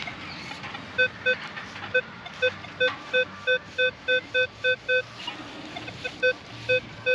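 Manticore metal detector giving short, repeated beeps of one steady pitch, about three a second, as the coil passes back and forth over a buried target, a 20-cent coin. The beeps pause briefly and resume near the end.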